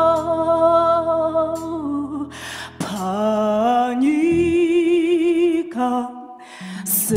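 A woman sings a slow gospel song in Shona into a microphone, holding long wavering notes, with two short breaks between phrases. A low, steady accompaniment sits beneath her voice and drops out about halfway.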